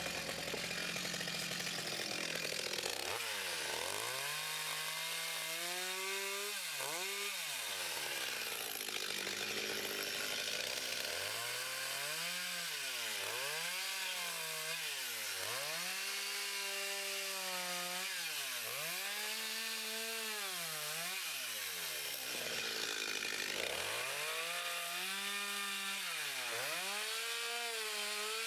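Two-stroke chainsaw cutting wood, its engine revving up to full throttle and dropping back over and over, roughly every one to two seconds.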